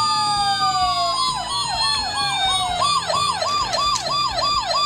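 Electronic siren sounds from toy police cars, several playing over each other: slow falling wails, then from about a second in a fast repeating yelp, about three cycles a second.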